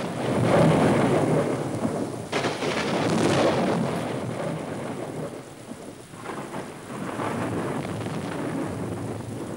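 Heavy rain with rumbling thunder: two loud surges in the first four seconds, then a steadier rush of rain.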